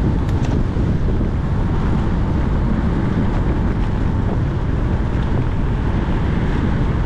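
Wind rushing and buffeting over a bike-mounted GoPro's microphone while riding at speed on a road bike: a loud, steady low rumble.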